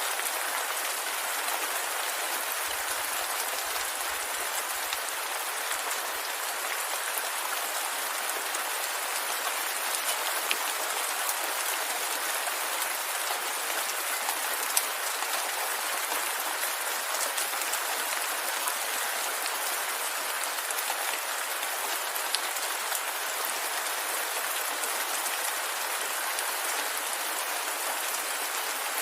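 Steady rainfall: an even hiss of rain with many small drop ticks and a few louder single drops landing on surfaces.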